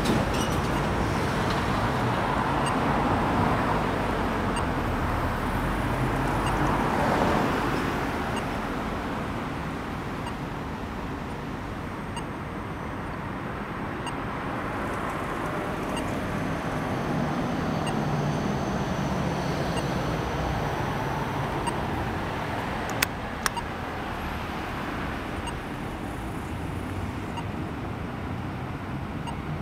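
Street traffic passing a signalised crossing, under the slow, regular tick of an Australian pedestrian crossing push-button's locator tone. Two sharp clicks come about half a second apart, a little after two-thirds of the way through.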